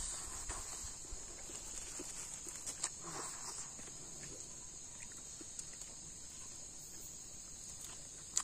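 Steady high-pitched chorus of insects, like crickets, with scattered soft clicks and mouth smacks from someone chewing and eating rice by hand.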